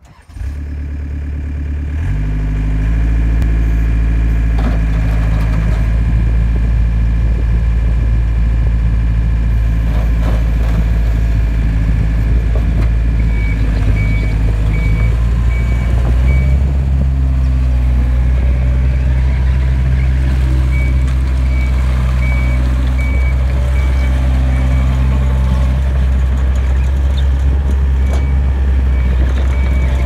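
2007 Takeuchi TL130 tracked skid steer's diesel engine running steadily while the machine is driven. Its pitch steps up about two seconds in and shifts again about halfway through. A faint, rapidly repeating beep comes and goes in the second half.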